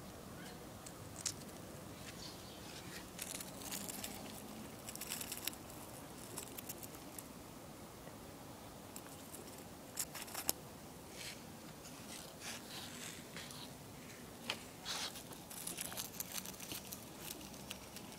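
Pet rat chewing and tugging at dry plant fibres, making faint, irregular crunching and crinkling clicks that come in scattered clusters.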